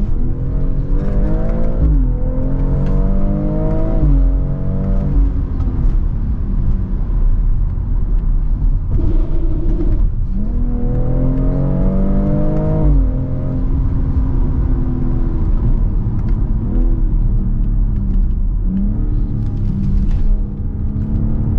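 BMW X3 M40i's 3.0-litre turbocharged straight-six accelerating hard. The revs climb and drop sharply at upshifts about two and four seconds in and again around thirteen seconds, with short blips of revs near the end.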